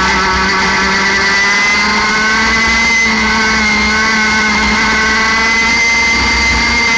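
60 cc single-cylinder two-stroke kart engine at high revs, climbing from about 11,600 to nearly 14,000 rpm as the kart accelerates.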